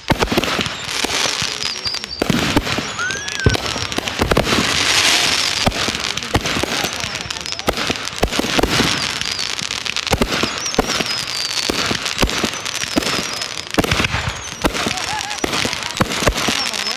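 Fireworks going off in a rapid, continuous barrage of bangs and crackling, with high wavering whistles over the top.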